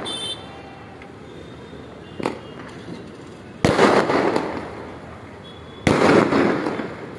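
Fireworks going off over the city: a small pop about two seconds in, then two loud bangs about two seconds apart, each dying away over a second or so.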